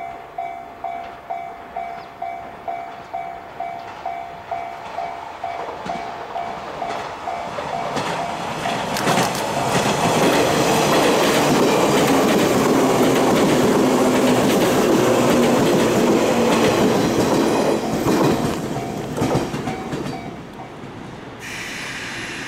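An electronic level-crossing warning bell rings about twice a second, then a JR 185 series electric train runs past at speed, its wheels clattering over the rail joints, loudest in the middle. The bell is heard faintly again as the train goes away.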